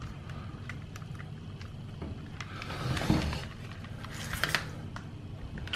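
Handling noise as an antenna is screwed into a handheld plastic RC transmitter: faint scraping with small clicks, and two louder rubbing sounds about three and four and a half seconds in.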